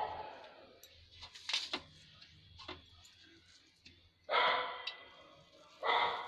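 A dog barking three times: once at the start, once about four seconds in and once near the end. Faint clicks and taps come in between.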